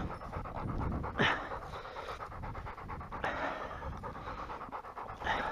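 German shorthaired pointer panting rapidly and hard, winded after a long run chasing down a wounded pheasant.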